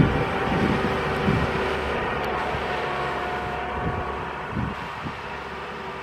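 Ashok Leyland diesel bus passing close by and pulling away, its engine rumble fading steadily as it goes, with some wind on the microphone.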